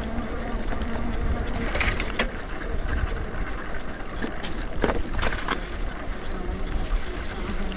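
Bicycle ridden over a bumpy grass track: a steady low rumble of tyres and wind, with scattered clicks and rattles from the bike, the sharpest about two seconds in and again around five seconds in.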